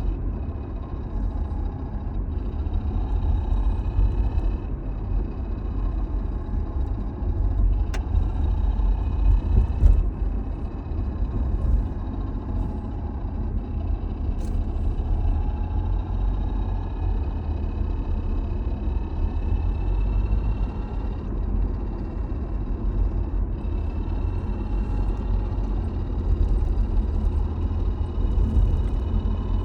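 Toyota Alphard (early 30-series) CVT making an abnormal whine while the car runs: several thin whining tones that slowly rise and fall over a steady low rumble.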